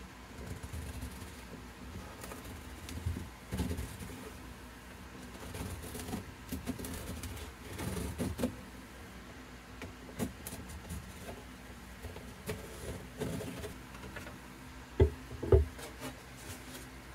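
Small wooden clamping blocks and a cardboard template being handled on a plywood workbench: scattered light knocks and shuffling, with two sharp wooden knocks about half a second apart near the end.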